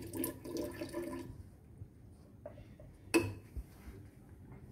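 Sodium thiosulfate solution poured from a glass beaker into an insulated batch reactor vessel, the liquid sound ending about a second in. A single knock follows about three seconds in.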